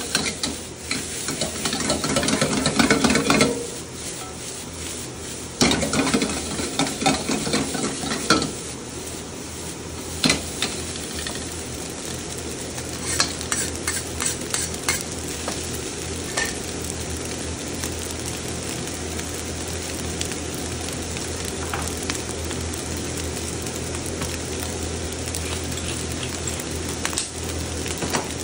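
Fried rice sizzling in a wok while a metal wok ladle scrapes and tosses it in two loud bouts over the first eight seconds. Then scattered clicks of metal on the wok, including a cleaver blade, over a steadier, quieter sizzle.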